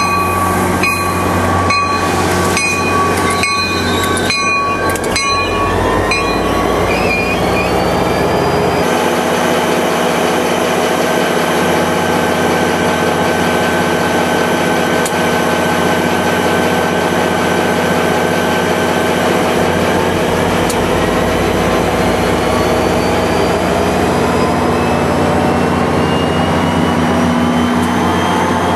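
NJ Transit GP40PH-2 diesel locomotive at a station: for the first six seconds its bell rings about twice a second, then the locomotive stands with its diesel running in a steady hum. Over the last few seconds the engine's pitch rises as it is throttled up to pull the train away.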